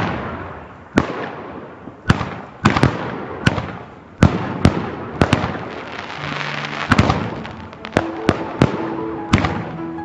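Fireworks going off: over a dozen sharp bangs at irregular intervals, with crackling and hissing from the burning shots between them.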